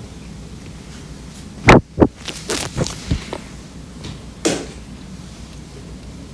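Two loud knocks close to the microphone, then a run of softer clicks and taps, over a low steady hum.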